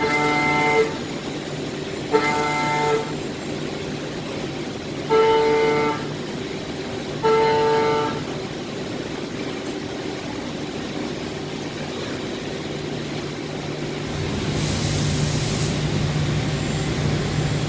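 Cutting tool chattering in 6061 aluminum on a machine tool: four short pitched squeals, each under a second, over a steady machine hum. A brief hiss comes about fifteen seconds in.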